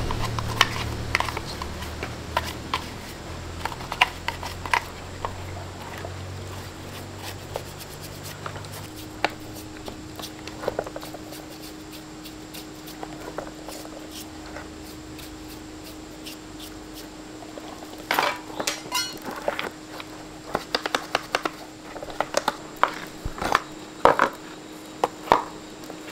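Small metal parts and hand tools clinking and tapping at irregular intervals, busier in the last third. A low hum fades away over the first several seconds.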